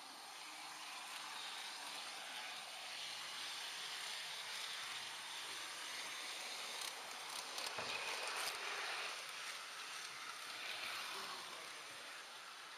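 H0-scale model train rolling along the track, heard from a camera riding on it: a steady rolling hiss with a few sharp clicks about eight seconds in.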